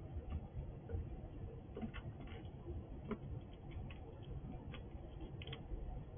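Squirrel cracking and chewing seeds held in its paws: faint, irregular small clicks and crunches, a few in quick succession near the end.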